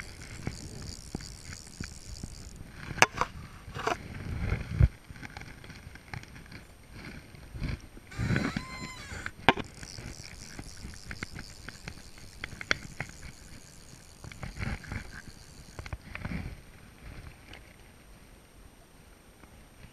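A fly reel clicking and ratcheting as it is wound, with sharp knocks and handling noises, several of them loud, around the boat and rod.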